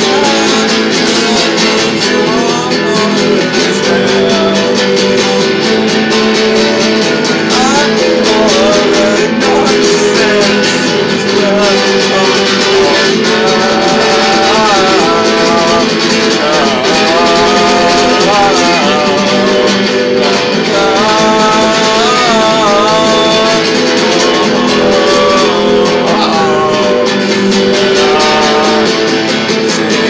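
A guitar strummed steadily while a man sings along, his voice wavering up and down over the chords, strongest through the middle stretch.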